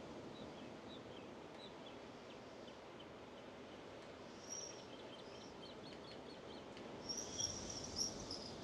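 Steady, soft wash of ocean surf with birds chirping over it; a louder high bird call comes about halfway through, and a cluster of louder high calls near the end.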